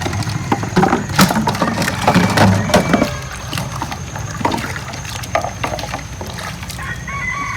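A busy run of sharp cracks and knocks, like wood being handled or broken, over a steady low rumble, with some water sounds; the cracks thin out after about three seconds.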